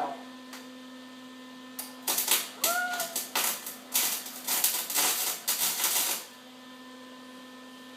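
Electric arc welder crackling and sputtering irregularly as the arc is struck and held for about four seconds, starting about two seconds in and cutting off suddenly.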